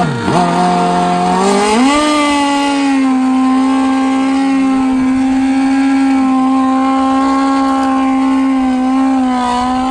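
Drag motorcycle doing a burnout, its engine held at a steady high rpm while the rear tire spins and smokes. The revs climb about two seconds in and then hold level.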